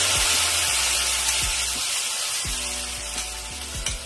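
A wet paste of ground tomato, ginger and green chilli sizzling as it hits hot mustard oil in a kadai, a loud hiss that slowly dies down over the next few seconds as the paste settles into the oil.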